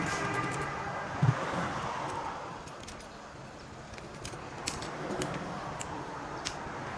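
Scattered light clicks and taps of small hand tools, with one dull knock about a second in, over a steady background hiss.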